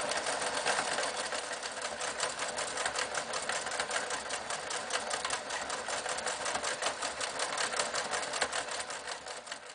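Riccar 8600 electric sewing machine running and stitching at speed, a fast, even clatter of needle strokes that fades near the end.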